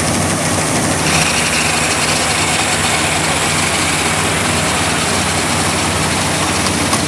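Vintage Massey-Ferguson combine harvester at work cutting wheat: its engine and machinery running steadily and loudly, with a dense mechanical rattle. About a second in, the sound takes on more high-pitched machinery noise.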